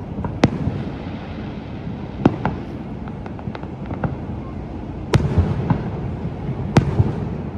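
Fireworks display: several shells bursting with sharp bangs, the loudest two about five and seven seconds in, with a few smaller pops between, over a steady low rumble.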